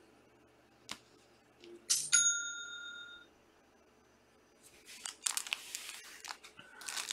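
A short bell-like notification ding about two seconds in, its tones ringing on for about a second: an alert that an order has come in on the online store. Rustling and clicking handling noises follow in the last few seconds.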